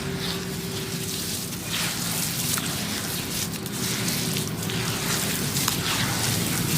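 Sand-cement chunks crumbling and crushing in a continuous gritty crackle, with many small crunches, over a low steady hum.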